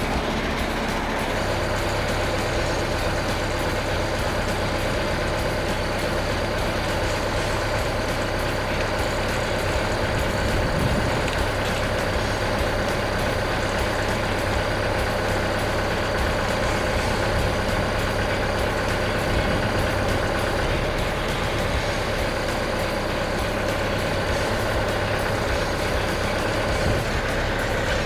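Compact tractor's engine running steadily while its front loader pulls on a strap to roll a heavy log over on a sawmill bed. About a second in, a steady hum with a high thin tone joins the engine as the load comes on.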